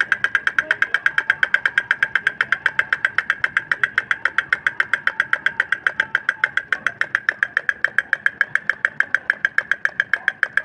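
Battery-operated drummer toy beating its plastic toy drum with plastic sticks, a fast, even, mechanical tapping of about seven strikes a second that keeps a steady rate.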